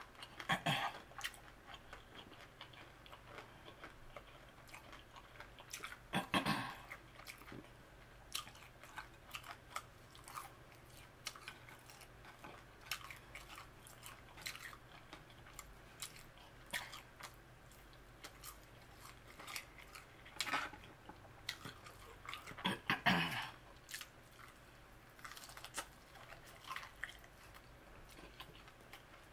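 A person chewing and biting fried chicken wings and french fries up close, with wet mouth clicks and crunches; louder crunching bites come near the start, about six seconds in, and again around twenty and twenty-three seconds in.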